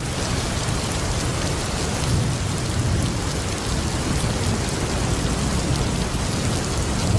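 Steady rain with thunder rumbling low underneath, swelling a few times.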